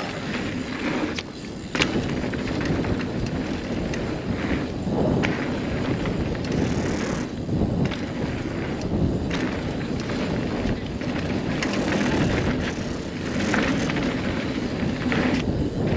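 2016 Kona Honzo ST steel hardtail single-speed mountain bike being ridden on a dirt trail: steady rush of tyre and wind noise with scattered clicks and rattles.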